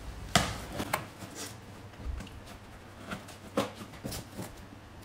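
Utility knife cutting the packing tape on a cardboard box: a few sharp scrapes and taps, the loudest about half a second in and another strong one about three and a half seconds in.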